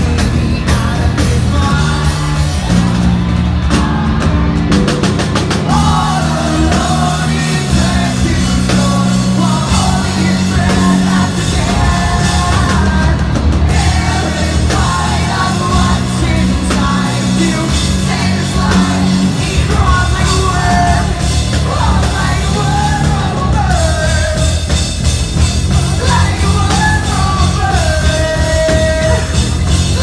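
Live rock band playing loud and continuous, with sung and yelled lead vocals over drums and a full band.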